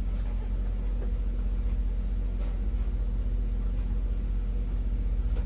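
Steady low mechanical hum of machinery running in a race team's hauler, with a couple of faint ticks.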